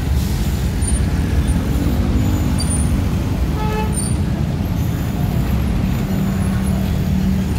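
Busy road traffic at an intersection: many motorcycles and cars running and pulling away, a steady engine rumble with one engine rising in pitch. A short horn beep sounds about halfway through.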